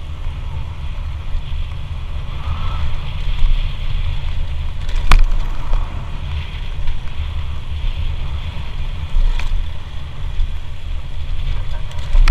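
Riding noise on an automatic scooter: wind buffeting the microphone over the scooter running, with a sharp click about five seconds in.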